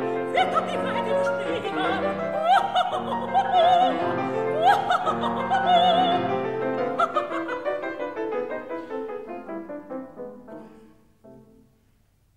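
Operatic soprano singing an ornamented, wavering line in a German art song with piano accompaniment. About seven seconds in the voice stops, and the piano carries on alone, fading away to near quiet, with one soft note near the end.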